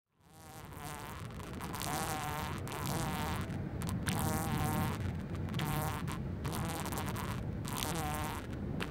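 A ground-nesting insect buzzing at its burrow in sandy ground, in bursts about a second long with short breaks between them.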